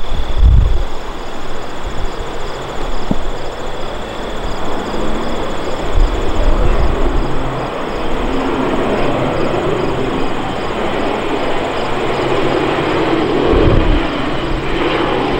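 Twin PT6A turboprops of a Beechcraft King Air 350 on approach: a steady propeller drone and hum that grows louder in the second half as the aircraft nears. Wind buffets the microphone briefly a few times.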